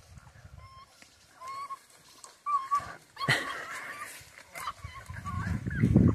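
A pack of bush dogs tearing at a paca carcass, giving short high squeaking calls again and again, with a louder sharp call about three seconds in. A lower, rougher noise from the pack builds near the end.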